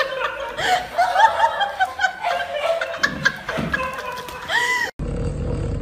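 High-pitched laughter, quick repeated giggles with a short rising squeal near the end. It cuts off suddenly, and a steady low hum follows.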